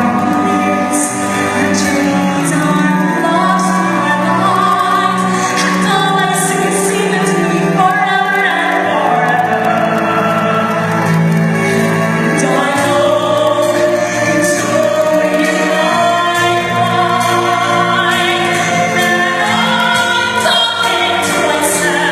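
Singing over musical accompaniment, loud and continuous, with long held notes.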